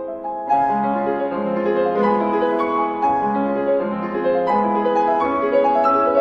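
Background piano music: a gentle melody of held notes over a repeating low figure.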